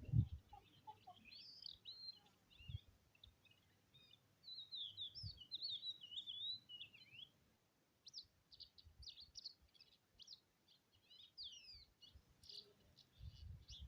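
Small songbirds chirping and twittering faintly: scattered chirps, then a quick warbling phrase about four seconds in, then a run of rapid down-slurred notes in the second half. A few low thumps break in, the strongest right at the start.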